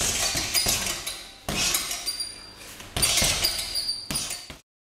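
Strikes landing on a hanging heavy punching bag, each hit followed by the clinking ring of its metal hanging chain, several hits about a second apart. The sound cuts off abruptly near the end.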